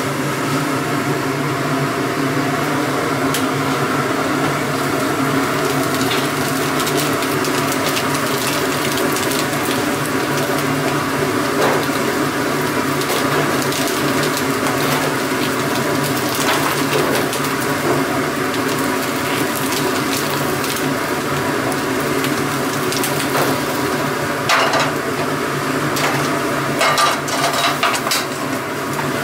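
Steady rush of a high gas burner flame searing pork trotters held in a wire grill basket, with a constant kitchen hum beneath it. The metal basket clinks and rattles now and then, several sharper clanks near the end as it knocks against a wok.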